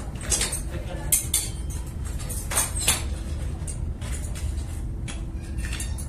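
Cast aluminium hooks and fittings clinking against each other as they are handled: several short, sharp metallic clinks in small clusters over a steady low hum.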